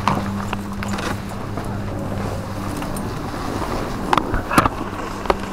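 Chairlift terminal machinery humming steadily. A few sharp clacks sound near the start. The hum fades after about two seconds, leaving a rustling noise and a few louder knocks near the end.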